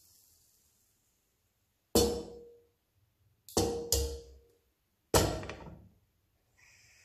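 Nonstick frying pan clanking down onto the gas hob's metal grate four times, each knock ringing briefly. Near the end a steady hiss starts as a gas burner is turned up.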